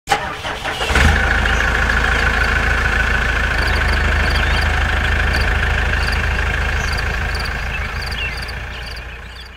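A tractor engine runs steadily, coming up sharply about a second in and fading out near the end.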